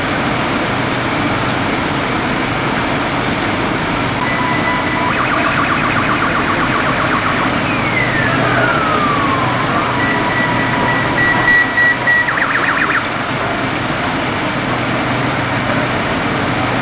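Emergency vehicle siren sounding in several patterns. It starts about four seconds in with a short steady tone, goes into a rapid warble, then a single falling wail, then another steady tone and a brief warble, and stops about two-thirds of the way through. Underneath it all runs a steady rumbling background noise.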